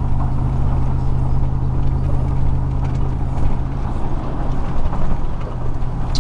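A 2000 Chevrolet Silverado's 4.8-litre V8 cruising steadily at about 40 mph, heard from inside the cab: a steady low engine and exhaust drone over road and wind noise.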